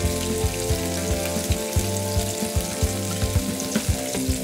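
Background music with sustained chords and a steady low beat, over a crackly rustle of flour as bare hands press and turn raw chicken drumsticks in a glass bowl of seasoned flour.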